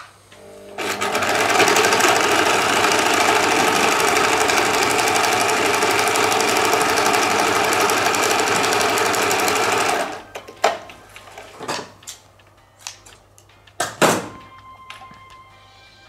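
Electric sewing machine stitching at speed through layers of pinned fabric, sewing the main seam of a cloth face mask: it speeds up about a second in, runs steadily for about nine seconds, then stops. A few sharp clicks follow.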